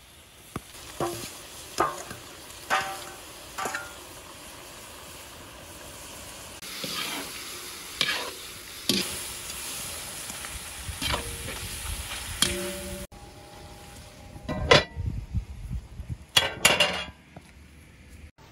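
Rabbit pieces with tomato and onion sizzling in a large metal wok-style pot over a wood fire, with a metal spoon scraping and knocking against the pan as the food is stirred. The knocks come about once a second at first, with a few louder ones later.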